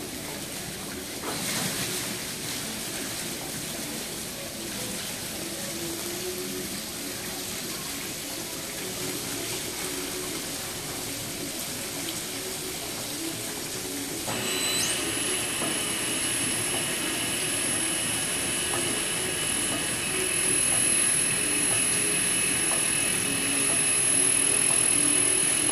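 Winery must pump running as wet red grape skins and must slosh down from the fermentation tank's door into its hopper. About halfway through, a steady high-pitched motor whine comes in suddenly and the running gets louder.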